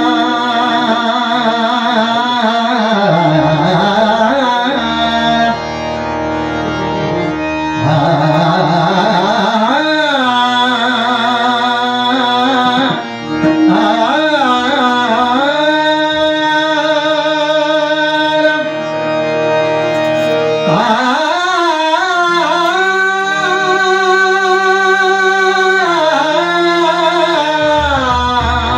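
Indian devotional music: a singer's wordless alaap, sliding and wavering between notes, over a harmonium's steady held notes, introducing a Marathi abhang in raga Bhupeshwari.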